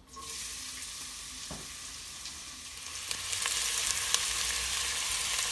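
Chopped onions sizzling in hot vegetable oil in a pot, with scattered pops. The sizzle starts suddenly and grows louder about three seconds in.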